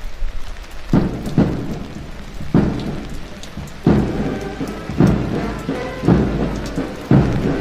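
Steady rain, with heavy drum beats about once a second starting about a second in, each followed by held chords: a parade band's bass drum and brass playing in the rain.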